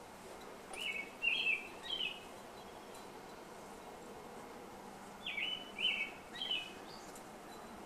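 A songbird singing a short phrase of three quick chirps, twice, about four seconds apart, over a steady outdoor background hiss.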